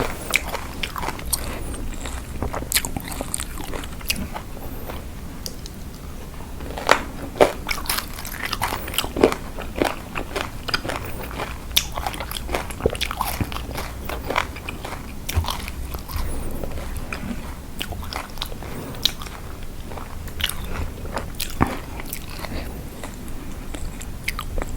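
Close-miked biting, crunching and chewing of spicy Thai lime salad: irregular crisp crunches with wet mouth sounds, a few louder bites about a third of the way in.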